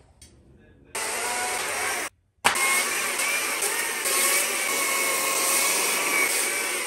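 Stihl MSA battery chainsaw running and cutting into a log, a steady whine whose pitch wavers as the chain bites. It starts abruptly about a second in and drops out for a moment near two seconds before carrying on.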